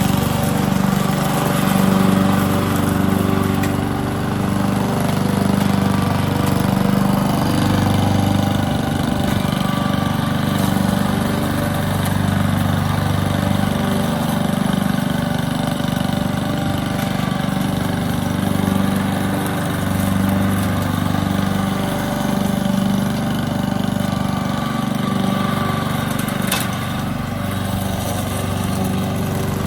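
Honda 21-inch walk-behind lawn mower's single-cylinder four-stroke engine running steadily. Its level swells and eases every couple of seconds.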